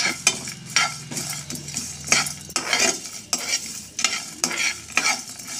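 A steel spoon stirring and scraping whole spices, peanuts, sesame seeds and coconut pieces around a dry nonstick pan as they roast without oil, a rattling scrape about twice a second. A low hum runs under it and stops about halfway through.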